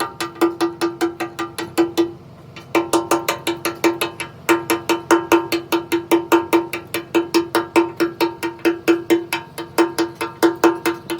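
Rapid hammer blows on steel, about four a second, each ringing at the same pitch, with two short pauses.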